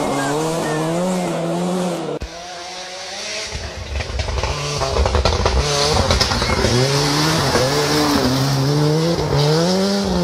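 Ford Sierra Cosworth rally car's turbocharged four-cylinder engine revving hard, its pitch rising and dropping again and again through the gear changes. The sound breaks off about two seconds in, then builds back up as the car approaches and passes.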